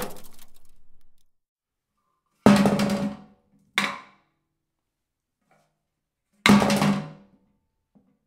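A series of separate impact hits: the decaying, rattling tail of one hit, then three sudden hits, each fading within about a second with a short low ring.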